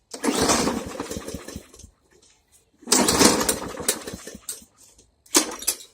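Briggs & Stratton 300E series 125 cc lawn mower engine being pull-started: it turns over with rapid pulses for a second or two each time, twice, and a shorter third pull comes near the end. It does not keep running: the mower won't start.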